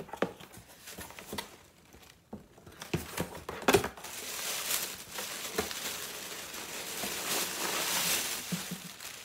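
Cardboard box flaps being handled with a few light knocks and rustles, then, about four seconds in, a steady crinkling as packing wrap is pulled out of the box and handled.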